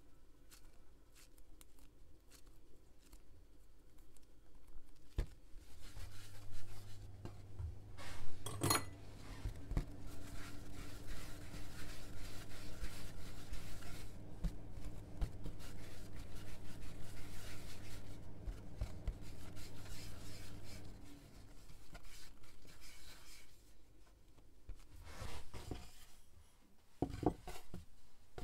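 Hands rounding balls of bread dough on a wooden board: a soft, evenly repeating rubbing with small clicks, over a low hum that stops about 21 seconds in. A sharp knock comes about nine seconds in.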